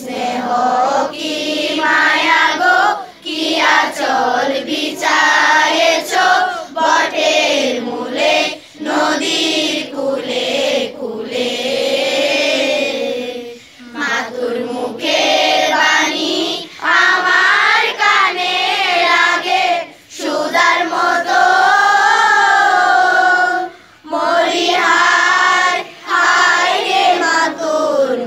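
A group of school boys and girls singing together in unison without accompaniment, in long phrases with short breaks for breath between them.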